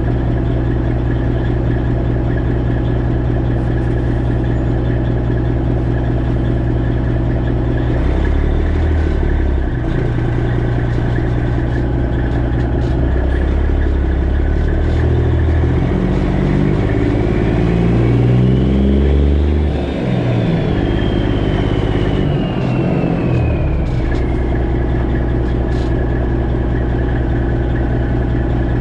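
Freightliner Classic XL semi-truck's diesel engine running under way. Its pitch climbs and drops in steps through the middle as engine speed changes, and a faint high whine rises and falls near the middle.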